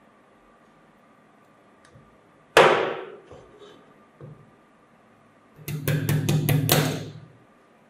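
A single loud metallic clank with a ringing tail a little over two seconds in. Near the end comes a quick run of six or seven sharp metal taps: needle-nose pliers striking the mandrel of an aluminium blind rivet held upright in a bench vise.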